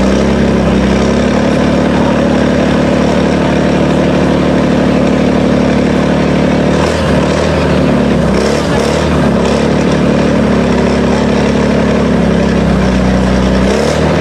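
Heavy off-road trial truck's diesel engine working under load on a steep climb, running loud and steady; about halfway through its pitch dips and wavers, then it pulls steadily again.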